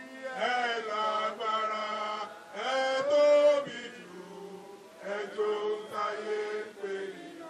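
A group of voices singing a chant-like song together in long held notes, in phrases with short breaks; the loudest, highest note comes about three seconds in.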